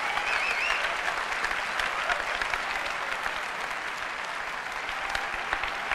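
Large audience applauding, with a brief cheer in the first second; the applause slowly tapers off.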